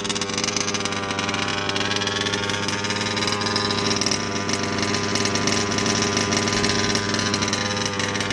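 HPI Baja RC buggy's small two-stroke petrol engine idling steadily, a fast, even buzzing rattle.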